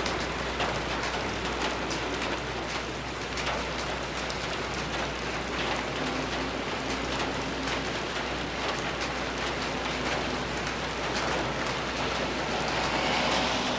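Steady rain falling on a porch, with many separate drops and drips from the eavestrough ticking through it. The hiss swells for a couple of seconds near the end.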